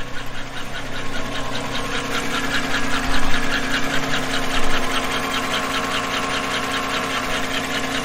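Chevy L83 5.3-litre V8 idling with a quick, even tick over its steady hum, heard from beneath the engine. The tick runs at half crankshaft speed, which the mechanic reads as a top-end valvetrain noise, a suspected lifter tick.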